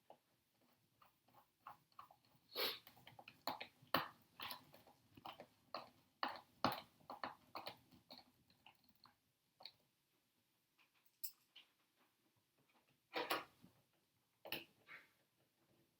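Handling noise from fitting a wheel onto an RC truck's hex hub: a run of sharp plastic-and-metal clicks and taps, then two louder scraping rustles near the end.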